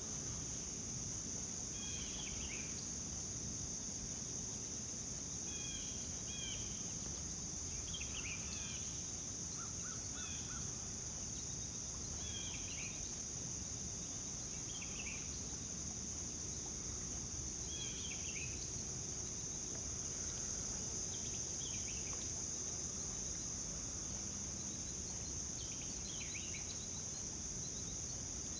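Outdoor ambience of a steady, high-pitched insect chorus of crickets, with a bird giving short chirping calls every second or two over a low background hum.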